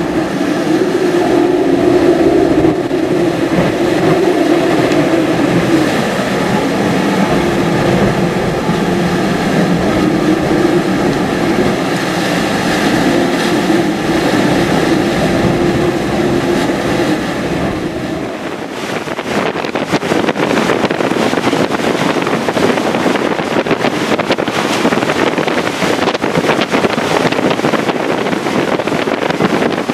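Hurricane-force wind howling with a steady whistling drone. About 18 seconds in, after a cut, it gives way to rough, gusty wind buffeting the microphone.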